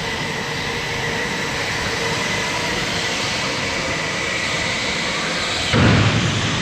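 Go-karts running on a track: a steady mechanical whine and rush of noise, with a louder, deeper surge near the end as a kart comes close.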